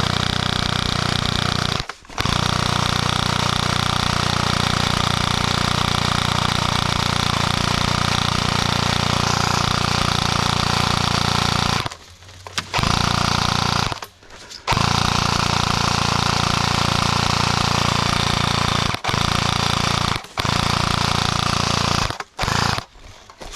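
Electric airsoft gun firing on full auto: long, sustained bursts of rapid, even buzzing rattle from close by, broken by several brief pauses where the trigger is released.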